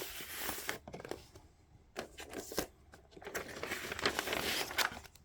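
Paper and card rustling and crinkling as a vinyl LP record is handled and slid out of its sleeve, with a couple of sharp clicks about two seconds in and a longer rustle near the end.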